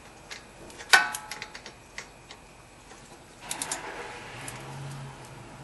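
A ratchet with a 16 mm socket breaking a rusted-in front brake caliper bolt loose: a sharp metallic crack with a brief ring about a second in, then light ratchet clicking, with a second cluster of clicks about halfway through.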